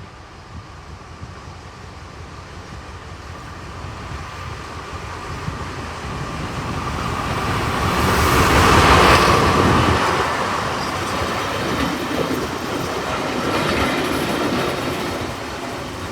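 A diesel train passing by. It grows steadily louder, is loudest about nine seconds in, then fades.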